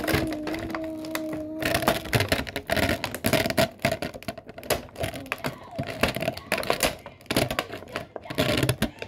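Rapid clicks and clatter of a clear plastic makeup container being handled close to the microphone. A steady low tone runs under the first two seconds and then stops.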